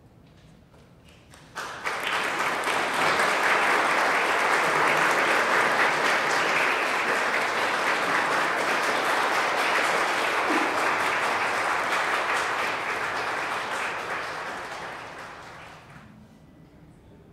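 Audience applauding, starting suddenly about a second and a half in and dying away near the end.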